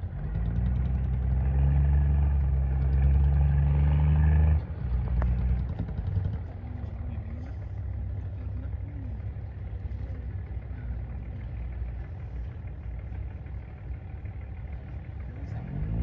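A nearby engine running with a steady low hum that drops off abruptly about four and a half seconds in, leaving a low rumble, then an engine revving up near the end.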